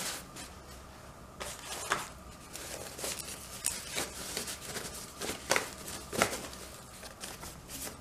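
Thin white packaging wrapper crinkling and rustling in the hands as a smart wall switch is slid out of it, in a string of short crackles.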